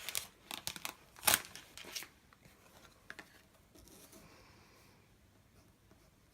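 Crinkly plastic packaging rustling and crackling as a pen is unwrapped and handled, with one sharp click a little over a second in; after about two seconds only faint handling sounds remain.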